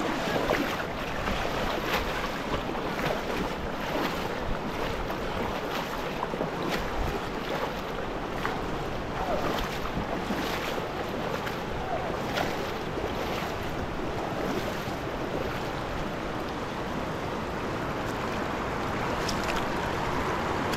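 Steady rushing of running water, with a few faint clicks scattered through it.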